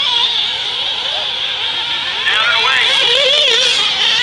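Several nitro RC buggy engines screaming at high revs, their pitch climbing and dropping as the buggies accelerate and brake around the track.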